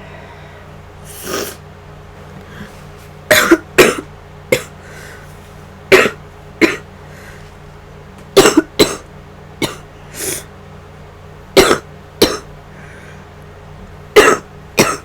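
A sick woman coughing in short, loud bursts, about a dozen coughs, many in quick pairs, with a few softer breaths between. She is ill with a flu-like illness.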